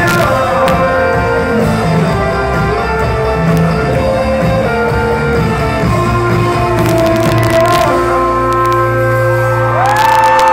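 Live band playing through the venue PA, heard from the crowd: amplified guitars, keyboards, bass and drums. Near the end the song settles onto a held chord as a high tone glides up and holds.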